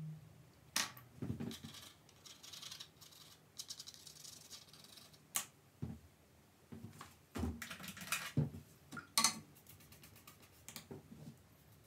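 Paintbrushes and painting kit being handled and put down: a scatter of irregular clicks and light knocks, with a short stretch of scratchy rustling a few seconds in.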